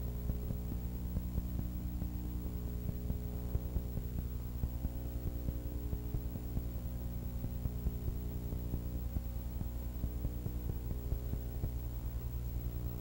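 Steady electrical mains hum: a low buzzing drone with many overtones that does not change, with a faint high-pitched whine above it.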